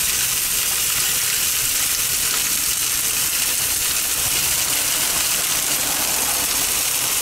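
Cevapcici sizzling steadily on the hot grate of an electric steak grill, over the even rush of an electric fan running beside it.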